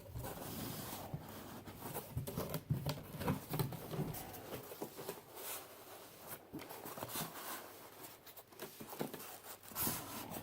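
Packaging being handled during an unboxing: irregular rustling and crinkling with small knocks and clicks.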